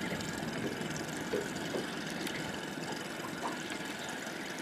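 Water lapping and sloshing against a small boat's hull, over the steady hum of the boat idling.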